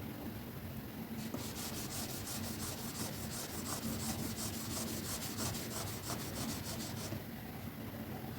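A stylus scratching quickly back and forth on a drawing tablet, several strokes a second, starting about a second in and stopping near the end, over a steady background of white noise.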